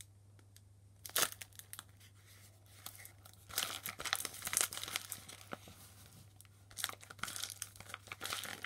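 Paper squishy being squeezed and crumpled by hand: its taped paper shell, stuffed with scraps of plastic bag, crinkles and crackles in irregular bursts. It starts about a second in and is busiest in the middle and again near the end.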